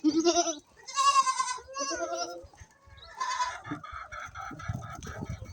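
Goats bleating: about four separate wavering calls in quick succession, with a low rumble of handling or movement near the end.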